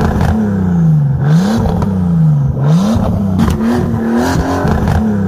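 A looped toy-car engine revving sound: one motor-like tone that slides slowly down in pitch, then snaps quickly back up, over and over about once a second.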